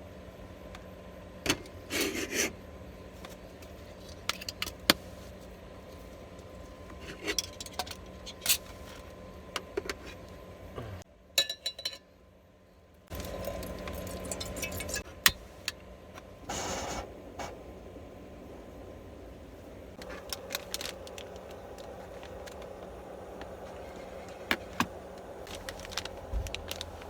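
Scattered short clicks, knocks and rattles over a steady low hum, with a brief drop-out about eleven seconds in.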